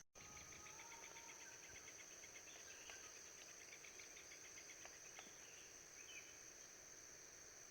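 Faint forest ambience: a steady high-pitched drone of insects such as crickets, with a rapid, even series of faint ticks in the first few seconds and a couple of faint single taps later.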